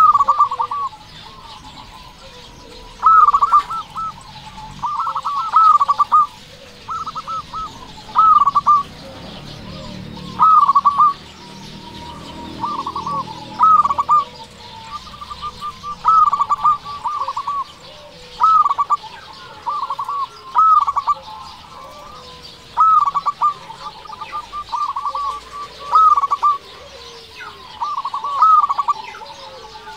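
Zebra doves (perkutut) cooing: short phrases of quick, clipped coo notes, repeated every second or two.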